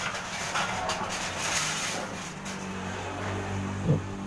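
Engine of a passing vehicle running as a steady low hum that grows louder about halfway through, with a short knock near the end.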